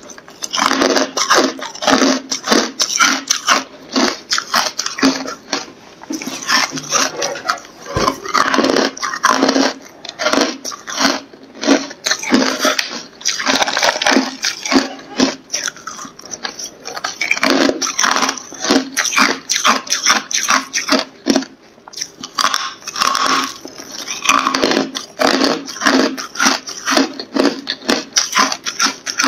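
Carbonated ice being bitten and chewed close to the microphone: a near-continuous run of crisp, rapid crunching crackles, with brief lulls between bites.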